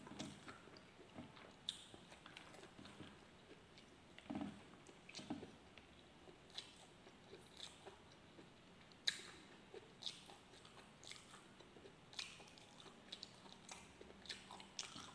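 A man chewing mouthfuls of roast pork and rice, with faint, wet mouth clicks and smacks at irregular intervals; one sharper click about nine seconds in.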